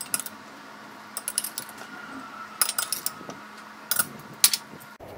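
Metal spoon clinking and scraping against a steel plate as rice is served onto it, in several short clusters of taps.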